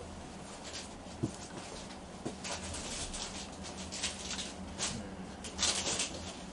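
Rustling and brushing of kimono fabric as lining samples are handled and laid against a kimono: a run of short soft swishes, busiest from about two and a half to six seconds in, over a steady low hum.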